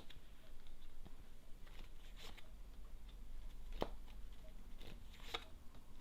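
Tarot cards being drawn from the deck and laid on a table: a few soft card slaps and clicks, three of them clearer than the rest.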